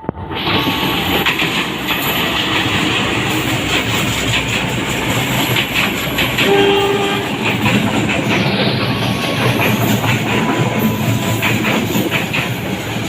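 A train passing close by, with loud rolling noise and the wheels clicking over rail joints.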